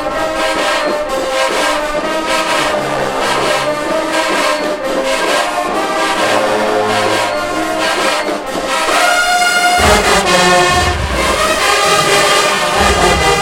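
Marching band playing, with the brass section, trombones prominent, carrying held notes. Heavy low drums come in about ten seconds in.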